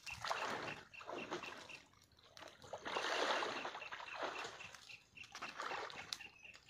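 Bull wading through a pond, the water splashing and sloshing around it in several bursts, the loudest about three seconds in.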